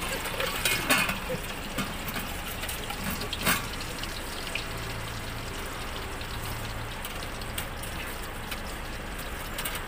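Steady hiss of hot oil deep-frying in a pot, with sharp metal clinks of tongs about a second in and again after three seconds.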